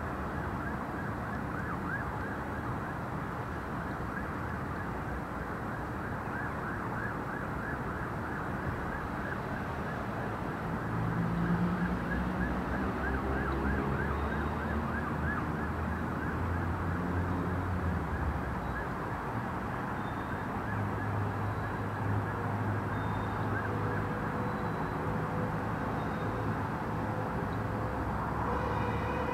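Outdoor night ambience: a steady dense hiss with rapid repeated chirps, joined about ten seconds in by a low droning hum.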